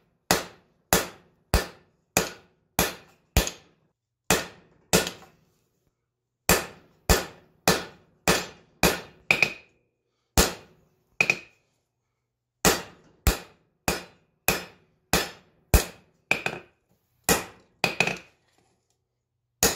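Hammer blows on hot 5160 coil-spring steel against an anvil as the bar is beaten flat and squared. The blows come in runs of about one and a half to two a second, with short pauses between runs, and some of them leave a brief metallic ring.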